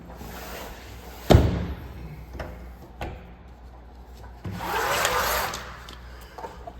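A sliding window or screen being worked in its track: a rubbing slide, one sharp knock about a second and a half in as it comes to a stop, then another longer rubbing slide near five seconds.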